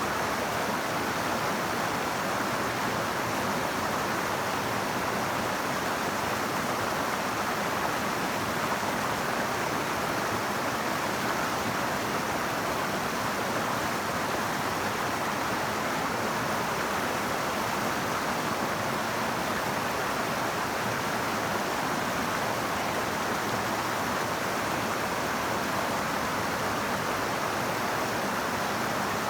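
Flowing river water making a steady, even rushing noise, strongest in the middle range, with no breaks or changes.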